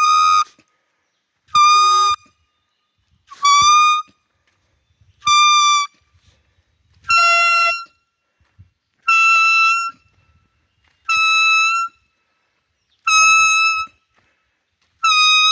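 Bamboo deer call blown in short, steady, high bleating notes, nine times about two seconds apart, imitating a fawn calling for its mother to lure a deer.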